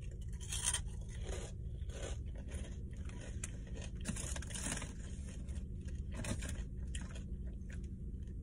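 Salt and vinegar pork rinds being chewed close to the microphone: irregular crisp crunches, with some rustling of the snack bag, over a low steady hum.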